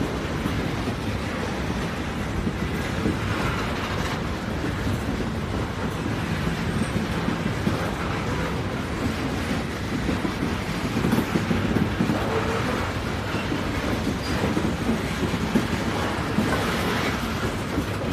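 Train running on the rails: a steady low rumble of wheels and track noise.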